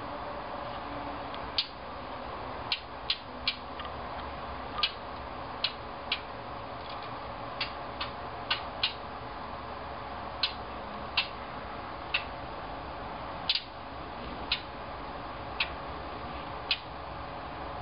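A yellow songbird at a hummingbird feeder giving sharp, dry click calls at irregular intervals, about one a second and sometimes two in quick succession, over a steady low background hum.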